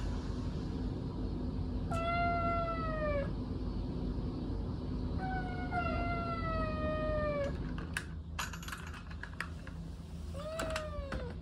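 A domestic cat meowing three times: two long meows that fall in pitch, then a shorter one near the end. A few light clicks come between them, over a steady low hum.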